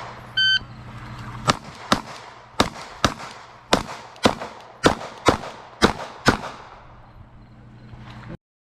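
Electronic shot-timer start beep, then ten pistol shots from a Glock fired in five quick pairs. The sound cuts off abruptly near the end.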